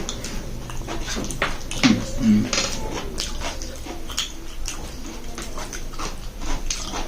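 Close-up eating sounds: wet chewing and lip smacks over soft rice pudding and pickle, with spoons clicking against the dishes, in a string of short sharp clicks throughout.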